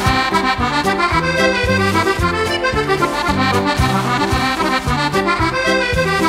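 Irish traditional dance tune on button accordion, a lively melody over bass notes on a steady beat.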